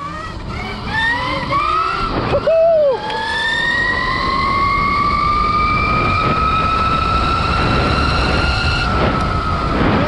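72V electric dirt bike's motor and drivetrain whining under hard acceleration, from about 10 to over 50 mph. A few short rising whines give way to one long whine that climbs steadily in pitch and levels off near the end, over steady wind rush on the microphone.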